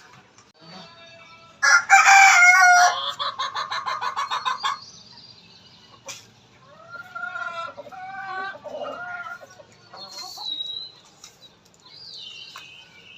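A rooster crowing loudly once, starting about a second and a half in and lasting about three seconds, followed by softer clucking calls from the chickens. A few high chirps come near the end.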